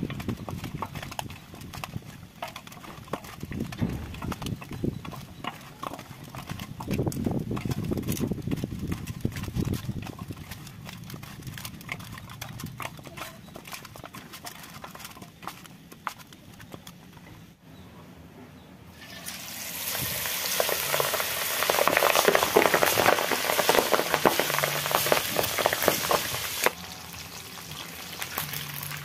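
Hands mixing raw chicken feet with spice powder and oil in a steel bowl, giving irregular wet handling clicks. About two-thirds in, chicken feet deep-frying in hot oil in a kadai take over with loud, dense sizzling, which drops to a lower level near the end.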